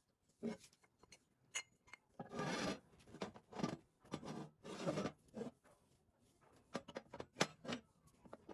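Hand work on parts: two longer rasping, rubbing strokes and several shorter ones, with sharp clicks between them.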